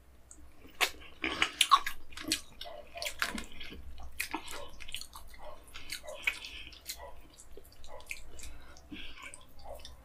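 Wet, messy eating sounds: chewing and lip smacks from someone eating fish in egusi soup by hand, with fingers squelching through the soupy fish. The sounds come as many short wet clicks and smacks, loudest between about one and two seconds in.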